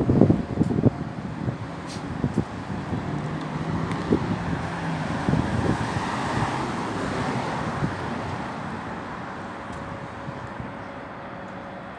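Strong wind gusting against the microphone: low rumbling buffets in the first second, then a broad rush that swells toward the middle and slowly eases off.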